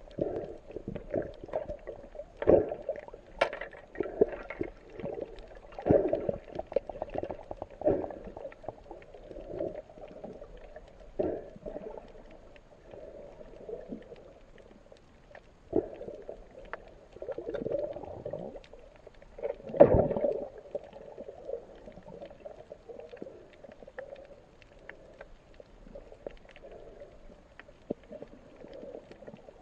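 Muffled underwater sound as heard by a camera in its waterproof housing: water sloshing and rumbling, with scattered knocks and clicks and a louder knock and swell about twenty seconds in.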